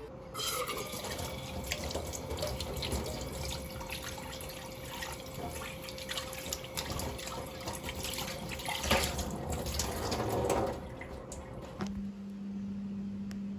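Water running from a tap into a sink, with splashing and small clinks, that stops about eleven seconds in. Right after, a steady low hum starts.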